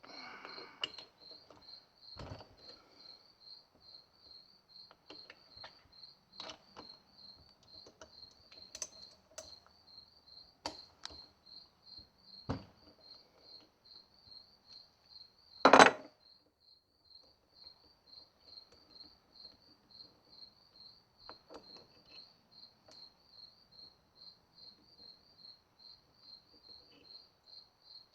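Hand tools clinking and knocking on the BMW S54 engine's VANOS unit as its exhaust-side bolts are taken off: scattered light clicks and knocks, with one loud clank about sixteen seconds in. A steady, evenly pulsing high chirp goes on throughout.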